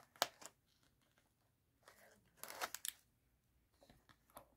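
Scissors snipping at a doll's clear plastic packaging to cut it free: two sharp snips right at the start, a short run of crackly plastic snaps about halfway, and a few faint clicks near the end.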